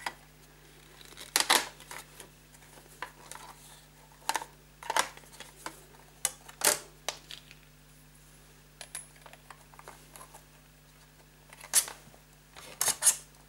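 Irregular clicks and knocks of cassette-deck casing parts and panels being handled and fitted back together, with a few sharper clacks.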